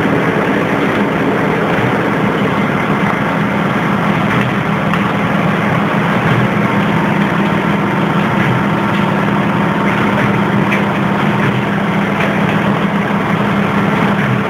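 DC electric arc furnace running: a loud, steady noise with a low hum through it and a light crackle.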